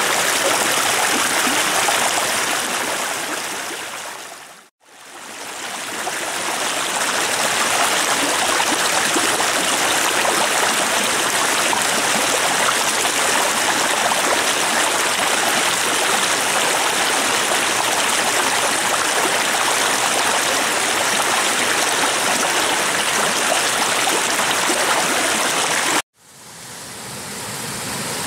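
A shallow, spring-fed mountain stream rushing over rocks and small cascades, a steady full hiss of running water. It dips to silence and fades back in twice, about five seconds in and near the end.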